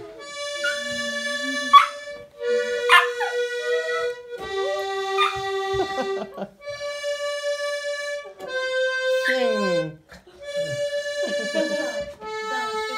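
Button accordion playing sustained chords in phrases of about two seconds, with short breaks between them. A small dog sings along, howling and yelping in rising and falling glides over the chords.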